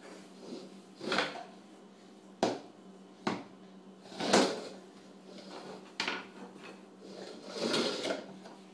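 Kitchenware being knocked about by a baby: about six separate clatters and knocks of pans, utensils and drawer or cupboard parts, spaced a second or two apart.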